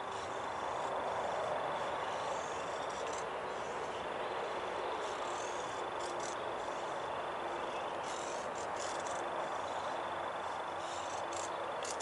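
Faint scraping and a few soft clicks of a knife blade shaving curls off a green stick to make a feather stick, over a steady outdoor hiss.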